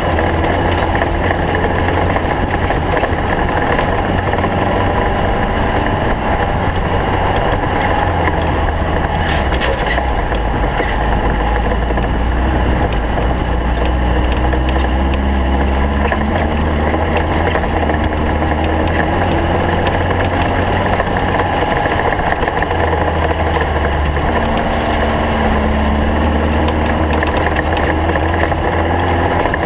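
Engine of a stock Volkswagen Beetle race car running steadily and loudly at speed, mixed with the noise of the car in motion.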